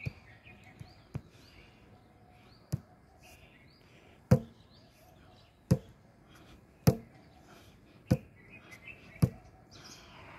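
An open hand slapping down hard on a stone bench slab, about eight strikes spaced a second or a second and a half apart. Faint bird chirps sound between the strikes.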